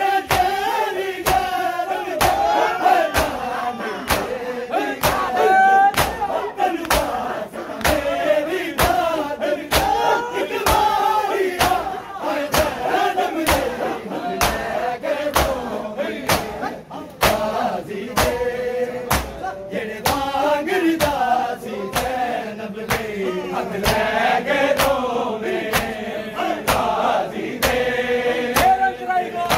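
Shia matam: a crowd of men beat their chests with open hands in unison, a steady beat of sharp slaps, while male voices chant a noha lament over it.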